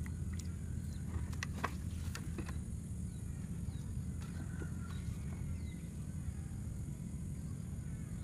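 A steady low rumble throughout, with a few light clicks and snaps about one to two and a half seconds in as hands work a bamboo fish hook trap and its line, and a few faint chirps later.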